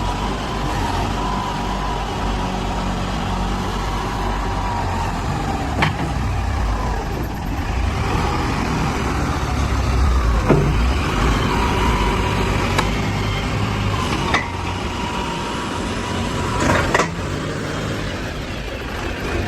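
Backhoe loader's diesel engine running steadily, with a thin higher whine that comes and goes and a few sharp knocks and clanks along the way.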